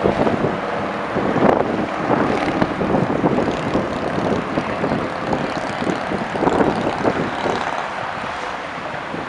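Engines of a Boeing 747-8 running as the jet rolls out along the runway after landing: a steady jet rumble with small rises and falls.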